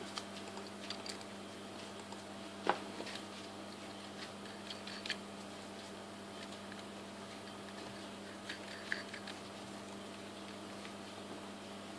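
A steady low electrical hum with a few light clicks and ticks scattered through it, the sharpest a little under three seconds in, from small handling of the fuel cell hardware.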